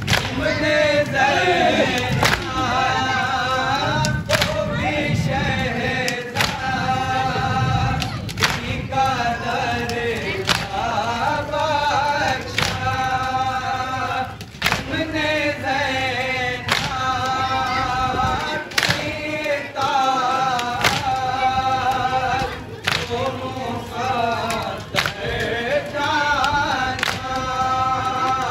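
Men's voices chanting a nauha, an Urdu Shia lament, together in a slow repeating melody. A sharp beat falls about every two seconds, the matam of mourners striking their chests in time with the lament.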